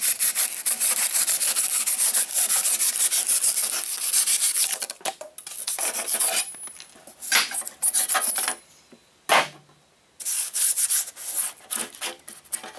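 Long knife blade sawing through cured spray-can expanding foam to trim it down. Fast, continuous scraping strokes for about four seconds, then separate strokes with a short pause about nine seconds in.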